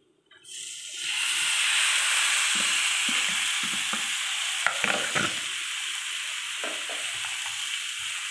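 Marinated chicken hitting a hot oiled pan of sautéed onions and spices: a sizzle that starts about half a second in, swells to a loud steady frying hiss within a second and holds. A few short knocks sound around the middle.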